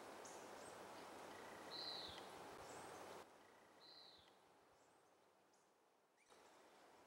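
Faint forest ambience: a soft steady hiss with a bird's short downward-slurred call twice, about two seconds apart, and a few fainter high chirps.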